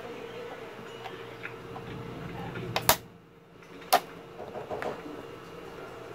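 Plastic clips of a monitor's back cover snapping loose as a flat metal pry tool is worked along the seam: sharp clicks, a quick double snap about three seconds in and a single snap a second later, over a steady faint hum.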